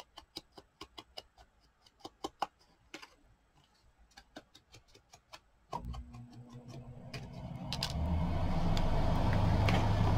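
A paper die-cut dabbed against an ink pad to ink its edges: a run of light, irregular taps, about three or four a second. About six seconds in, a steady motor hum starts and builds over a couple of seconds, becoming the loudest sound.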